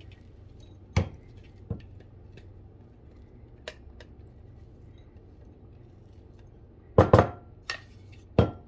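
Kitchenware knocking and clinking as chopped garlic scapes are emptied out of a food processor bowl into a mixing bowl. A few scattered single knocks come first, then a quick cluster of louder knocks near the end.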